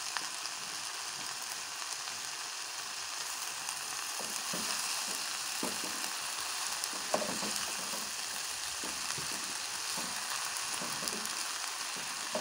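Shredded cabbage, vegetables and chicken sizzling in hot oil in a frying pan, with a spatula stirring and scraping through them from about four seconds in.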